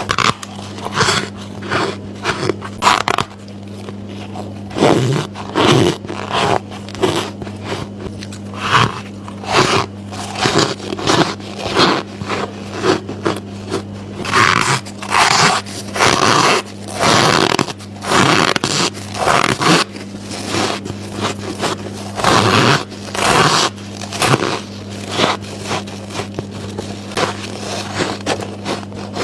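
Repeated bites into squeaky ice dumplings, short crunching, squeaking crushes of packed ice one after another, over a steady low hum.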